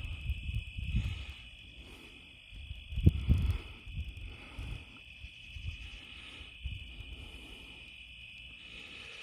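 Thunder rumbling, with a louder peal about three seconds in that trails off into low rolls. Insects chirp steadily underneath.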